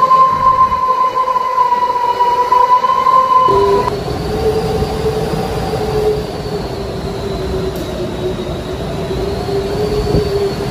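Hurricane-force wind howling through the gaps of glass doors and windows as a steady whistle. About three and a half seconds in it changes suddenly to a lower, slowly wavering howl over a rushing noise.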